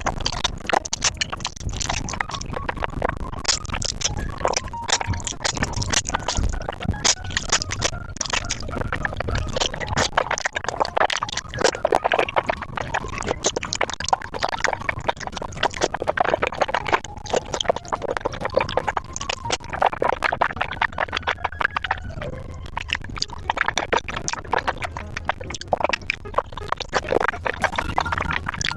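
Close-miked eating: rapid wet chewing, smacking and slurping of noodles, with music playing underneath.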